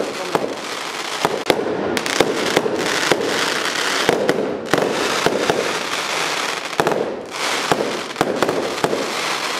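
Firecrackers going off, a dense, rapid, unbroken crackle of small sharp bangs.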